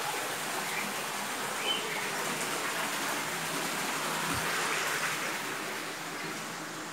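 Steady outdoor hiss with a few faint, short bird chirps in the first couple of seconds.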